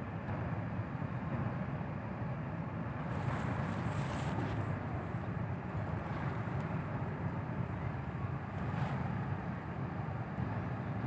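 Steady low engine rumble from the passenger ship Kelud and the tug alongside it as they manoeuvre away from the quay.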